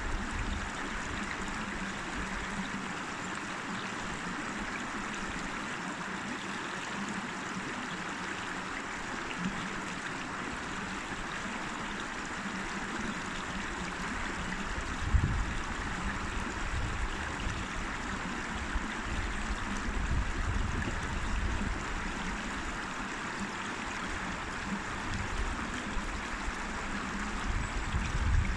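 A river flowing steadily, its water rushing and trickling over rocks, with a few brief low rumbles, the clearest about halfway through.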